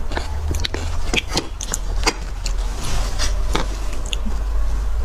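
Close-miked mukbang eating sounds: a metal spoon clicking and scraping in cut beef marrow bones as the marrow is scooped, with irregular sharp clicks throughout over a steady low hum.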